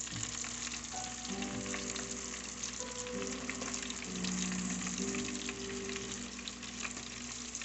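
Breaded calamari deep-frying in hot oil: a steady, dense crackling sizzle.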